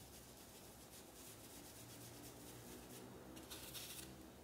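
Faint scratchy rubbing of a paintbrush dabbing fabric paint through a stencil onto a dish towel. A slightly louder brushy rasp comes near the end as the brush is worked on the paint tray.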